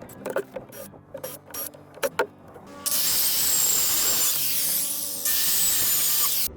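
Wood-working and demolition sounds: a few scattered knocks and taps, then about three and a half seconds of loud, harsh noise from a power tool working on deck lumber, which cuts off suddenly.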